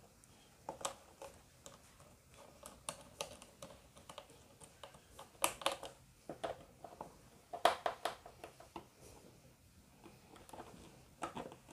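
Irregular small clicks and taps of wires and a brass neutral terminal bar being handled on a wooden board, as a neutral wire is linked to the neutral bar. The clicks come in loose clusters, loudest a little before the middle and again at about two-thirds.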